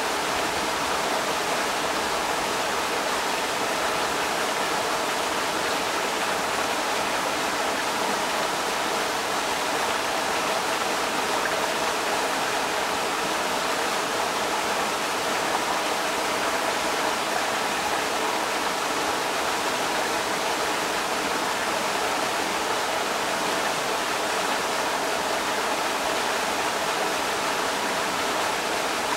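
Creek water rushing steadily over rocks, an even, unbroken rush.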